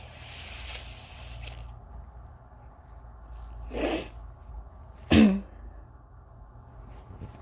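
A person blowing a congested, runny nose: a breathy hiss at first, then two short, hard blows about a second apart, the second louder.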